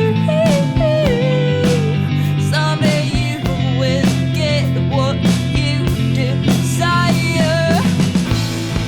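Rock music with a steady beat and a guitar lead playing gliding, bent notes.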